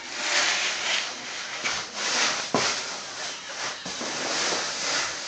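Cardboard diaper box scraping and sliding across a hardwood floor as a toddler pushes it, in uneven swells, with a couple of sharp knocks about two and a half and four seconds in.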